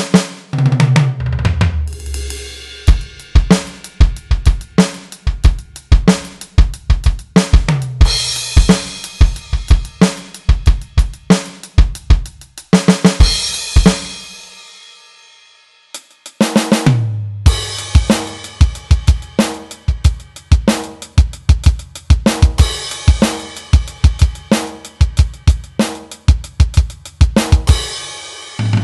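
Standard acoustic drum kit samples (kick, snare, hi-hat and cymbals) triggered from a Roland SPD-SX PRO sampling pad struck with drumsticks, played as a steady drum pattern. About halfway through, the playing stops and the sound dies away over a couple of seconds, then the pattern starts again.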